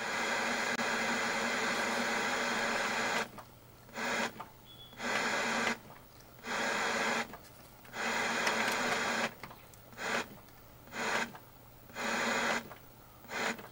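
Electronic hiss with a low hum, steady for about three seconds, then cutting in and out in short, irregular bursts.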